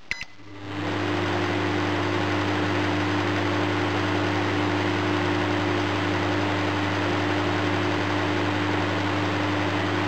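Panasonic inverter microwave oven switched on with a click and short keypad beep, then running with a steady hum and a rush of cooling-fan air. Its inverter is switching at just over 30 kHz.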